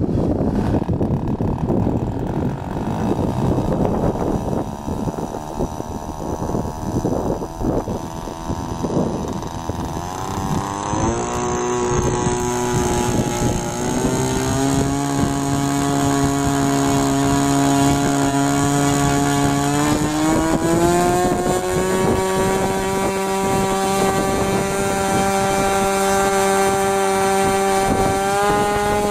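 Magnum XLS-61A two-stroke glow engine on a model aircraft, turned over with an electric starter and running roughly at first. About ten seconds in it settles into a steady idle, and around twenty seconds in it rises to a higher, steady speed as it is tuned.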